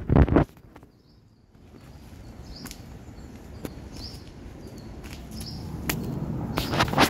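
Outdoor ambience with a short, high chirp repeating about every half second to a second, and scattered faint clicks. A loud burst of noise comes at the start and another just before the end.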